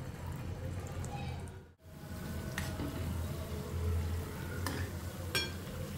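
Jaggery and wheat-flour fritters (gulgule) frying in hot oil with a steady sizzle, and a utensil clicking against the pan three times in the second half.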